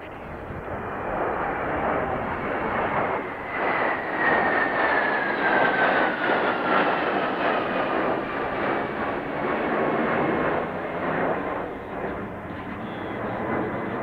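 Three Mitsubishi F-2 fighters passing overhead in formation, their F110 turbofan jet engines making a broad rush that builds, peaks in the middle and eases off. A whine runs through it and falls steadily in pitch as the jets go by.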